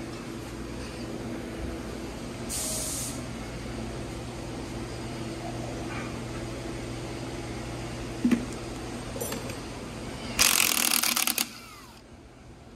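Two bursts of compressed air hissing from an air tool: a short one about two and a half seconds in and a longer, louder one about ten seconds in. Under them runs a steady low machine hum that drops away near the end, and a single sharp click comes about eight seconds in.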